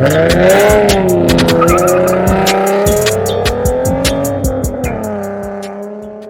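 A car engine revs sharply and is held at high revs, its pitch wavering, over music with a fast ticking beat. Everything fades out near the end.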